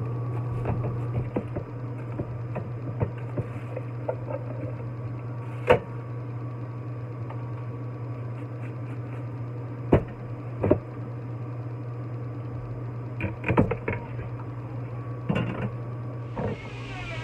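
Cut celery and a plastic salad-spinner basket being handled as the celery is tipped into a plastic blender jar: scattered knocks and rustles, the loudest about six and ten seconds in, over a steady low hum. A hissing noise starts near the end.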